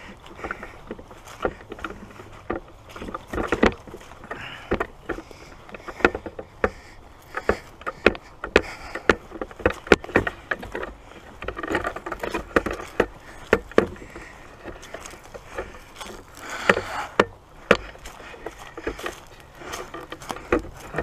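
Footsteps through dead grass and brush: irregular crunching steps with swishing as dry stems brush past.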